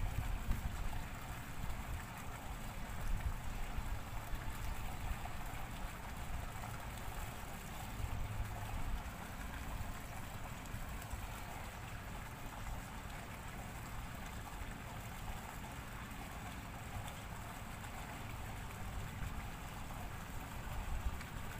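Steady outdoor background noise: an even hiss with a low, uneven rumble underneath, a little louder in the first few seconds.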